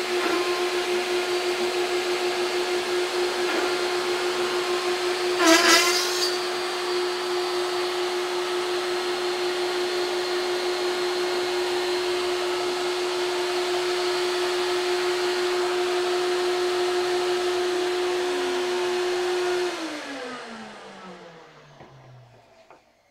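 CNC router's trim-router spindle running with a steady whine alongside a vacuum hose's hiss as it mills aluminium. About five and a half seconds in comes a brief rattling judder, which the operator puts down to the end mill breaking through the plate, hitting the clamp and snatching. Near the end the spindle and vacuum are switched off, and the whine falls steadily in pitch as the motor spins down.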